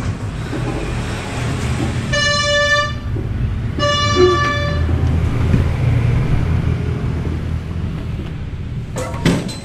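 Vespa scooter idling steadily, its horn tooted twice, each toot just under a second. A couple of sharp knocks near the end.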